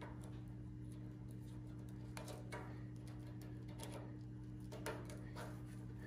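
Faint clinks and light clicks of a steel roller chain and its master link being handled and fitted together by hand, a few scattered clicks over a steady low hum.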